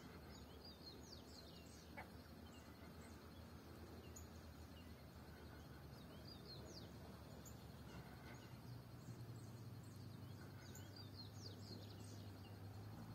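Faint birds chirping: many short, high chirps that sweep downward, scattered throughout. Under them runs a faint low hum that grows a little stronger about two-thirds of the way through.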